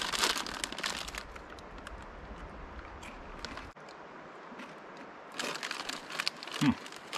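Crinkling of a Flaming Hot Cheetos foil snack bag being handled as a hand reaches in for chips, in two spells: through the first second and again from about two-thirds of the way in.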